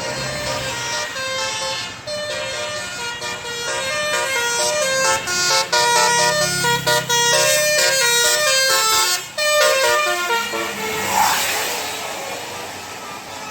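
Bus 'telolet' basuri horn, a multi-tone musical air horn, playing a tune of quick stepped notes that grows louder toward the middle, then a short rush of noise as the tune stops near the end.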